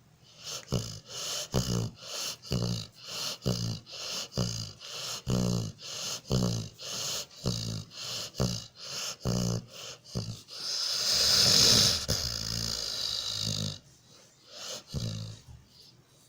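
A sleeping Labrador retriever snoring and snorting in quick rhythmic breaths, about two a second, each a low rattling buzz. Then a single long hissing breath of about three seconds, and two more snores.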